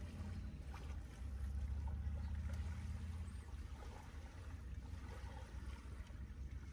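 Low, uneven rumble of a breeze on the microphone over a faint even hiss, swelling for a couple of seconds about a second in.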